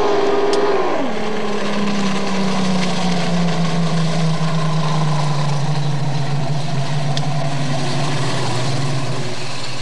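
Speedboat's outboard motors running at speed as the boat passes: the engine pitch drops sharply about a second in, then settles into a steady drone that sinks slowly lower.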